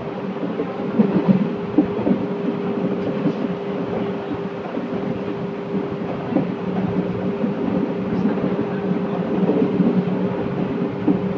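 Electric commuter train running along the track, heard from inside the cab: a steady humming tone under the running noise, with occasional knocks of the wheels over rail joints.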